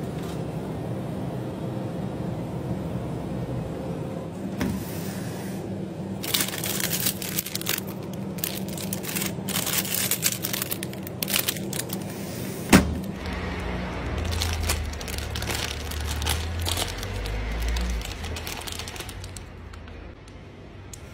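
Plastic-wrapped ice cream bars crinkling and rustling as a hand rummages through a chest freezer, over a steady hum. A single sharp click comes a little past the middle, followed by a few seconds of low rumbling.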